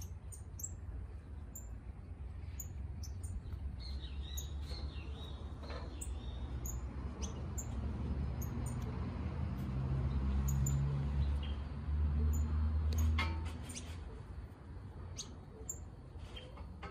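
Birds chirping: many short, very high chirps scattered throughout, over a low rumble that grows loudest in the middle and eases off near the end.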